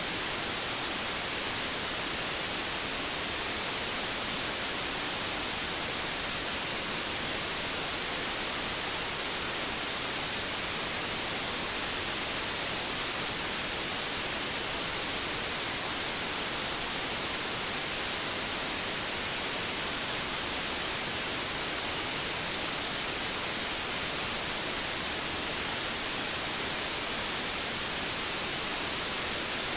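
Steady white noise: an even, unchanging hiss, brightest in the high frequencies, played as a sleep aid for babies.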